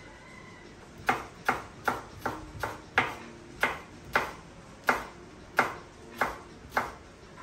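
Knife chopping vegetables on a cutting board: about a dozen sharp strokes, roughly two a second, starting about a second in.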